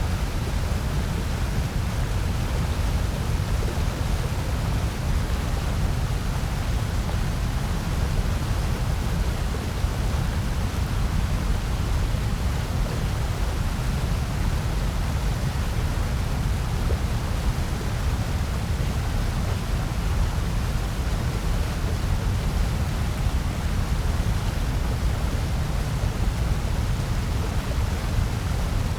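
Steady, unchanging generated noise played as a white-noise track, with most of its weight in a deep rumble at the bottom and a softer hiss above it.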